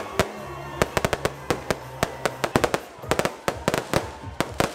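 Aerial fireworks going off in a rapid, irregular string of sharp bangs and crackles, several a second, with music playing underneath.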